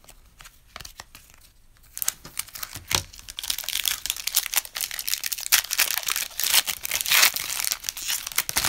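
Wrapper of a Panini Excalibur basketball card pack being torn open by hand and crinkled. The dense crackling starts about two seconds in and stops just before the end.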